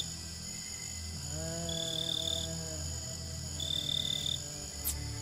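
Night-time insect chorus of crickets: a steady high trilling, with a higher chirping trill in bursts of about a second, three times. A lower held tone with overtones sounds for about two seconds in the middle, over a steady low hum.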